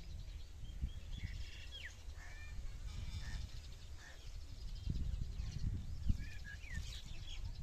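Small birds chirping, scattered short calls that glide up and down, over a steady low rumble.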